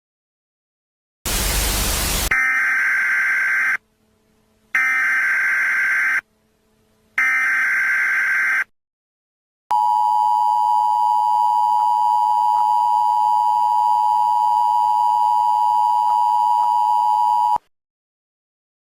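Emergency Alert System activation: a second of static, then the three bursts of the SAME header's digital data tones, then the two-tone attention signal (853 and 960 Hz) held steady for about eight seconds.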